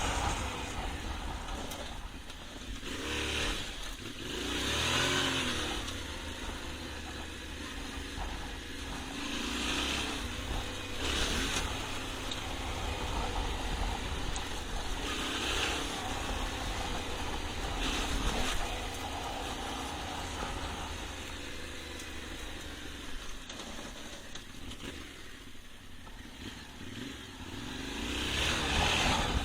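Yamaha Ténéré 700's parallel-twin engine running under a rider off-road, revving up a few seconds in and settling back. Rushing noise comes and goes over the engine sound.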